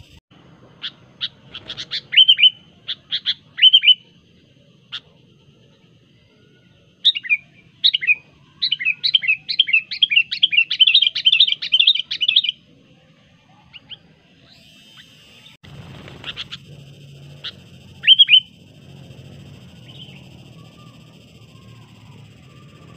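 Sooty-headed bulbul calling. A few sharp separate chirps come first, then about halfway through a fast run of chattering notes lasting several seconds, and a few single calls near the end.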